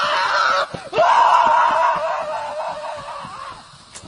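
A shrill, screaming voice in two long stretches, broken briefly under a second in, the second stretch fading away.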